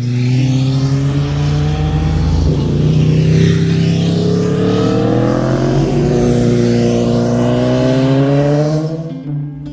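Sport motorcycles riding through a sweeping corner one after another, their engines running hard and rising and falling in pitch as they pass close by. The sound fades about nine seconds in.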